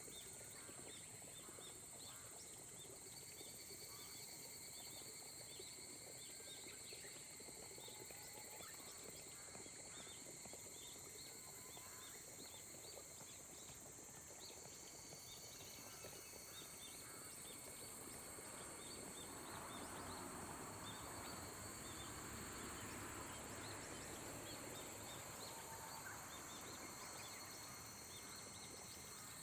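Faint, light rain falling steadily, with a continuous high insect drone and faint bird calls. The rain swells a little louder about two-thirds of the way through, then eases.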